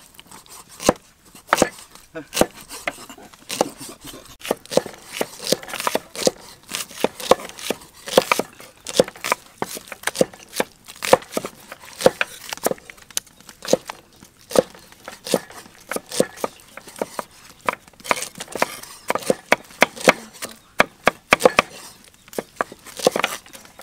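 Knife chopping raw beef on a round wooden chopping block: an uneven run of sharp knocks, several a second, as the blade strikes through the meat into the wood.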